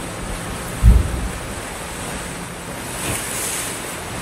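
Sea surf washing onto a beach, a steady rush with wind on the microphone; a loud, short, low thump about a second in, and a brighter wash of a wave around three seconds in.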